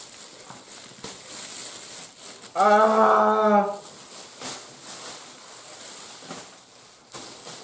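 Plastic packaging rustling and crinkling as a parcel is unwrapped, with a woman's voice holding one steady note for about a second, a few seconds in.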